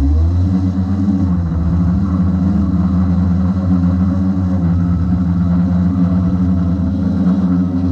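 DJI Inspire 1 quadcopter's four electric motors and propellers running at lift-off power, a loud, steady low hum as it takes off, heard from a camera mounted on the drone.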